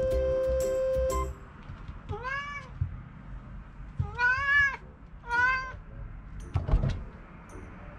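Domestic cat meowing three times, each call rising and then falling in pitch, a second or two apart. A short musical sting plays for about the first second, and a thump sounds near the end.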